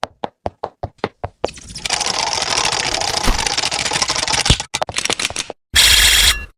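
A run of sharp clicks, about five a second, then dense crackling noise with ticks through it that cuts out abruptly, and a short loud burst of static-like hiss near the end.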